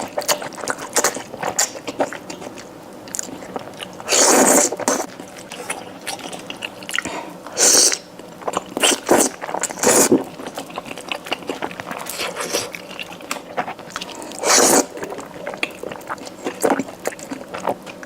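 A person eating close to the microphone, chewing wet food in a spicy stew with many small clicks and smacks. Four louder noisy sounds of about half a second each come at intervals.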